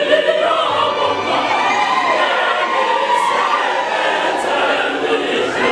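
A mixed school choir of girls' and boys' voices singing together in parts, many voices at once, steady and full throughout.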